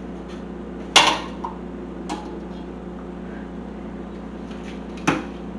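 A metal spoon clinking against a stainless steel saucepan while scooping boiled eggs out of the water: a sharp clink about a second in, a fainter one soon after, and another near the end, over a steady low hum.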